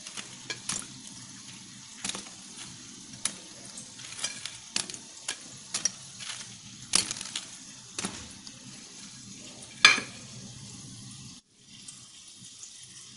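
Hot fried urad dal vadas dropped one by one into a ceramic plate of water to soak: irregular small splashes and clicks over a faint sizzle, the loudest a little under ten seconds in.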